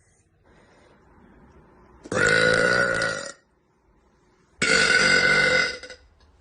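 A young woman burping twice: two long, loud burps, each lasting a little over a second, the second starting about two and a half seconds after the first.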